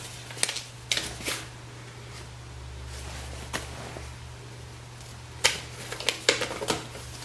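Pages of a paper instruction manual being handled and turned: short, scattered rustles and clicks, busiest about a second in and again in the last two seconds, over a steady low electrical hum.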